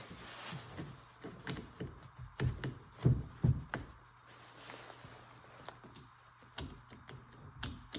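Irregular metal clicks, taps and a few heavier knocks about three seconds in, as jumper leads are touched across a bad starter motor's terminals. The starter does not spin or throw its drive gear, because its field coils are shot.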